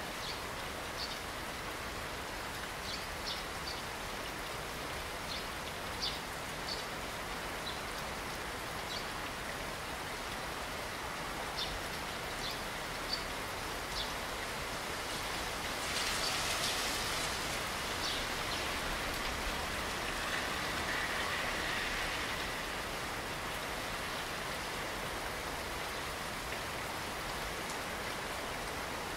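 Steady rain falling, with scattered single drips ticking in the first half and a louder hiss swelling for a few seconds around the middle.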